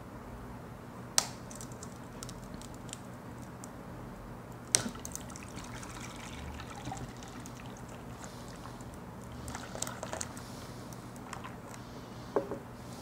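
Blended custard mixture poured from a blender jar into a metal flan pan over a layer of hardened caramel: a quiet, steady pour. Three sharp cracks stand out, about a second in, near the middle and near the end, with a few smaller ticks between; the cook expects the hard caramel to crack audibly as the mixture lands on it.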